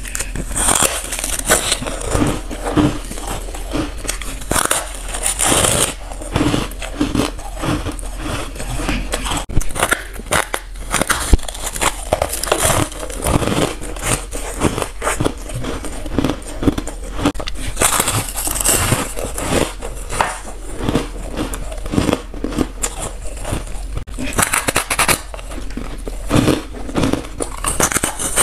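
Close-up crunching of a person biting off and chewing pieces of a white freezer-frost ice block, a dense crackle of breaking frost with heavier bites every few seconds.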